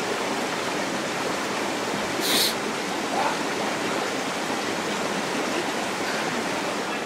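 Steady rushing of a mountain stream running through a narrow rock gorge, with a brief sharp hiss about two and a half seconds in.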